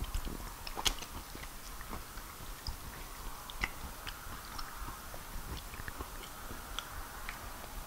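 A person chewing soft fufu and peanut soup close to the microphone, with scattered wet mouth clicks and smacks, the sharpest about a second in.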